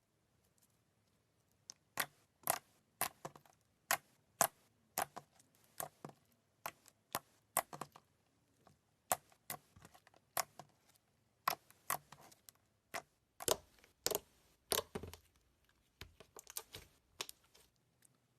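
Slime being squeezed and poked, making a string of sharp, irregular clicking pops, roughly two a second, starting about two seconds in and crowding closer together near the end.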